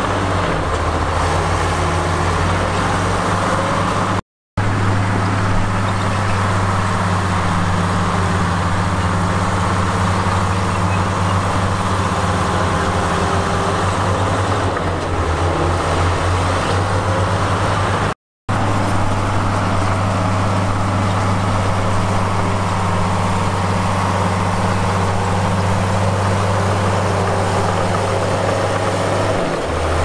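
Heavy earthmoving machinery's diesel engine running steadily under load, with a constant low hum, cutting out completely for a split second twice.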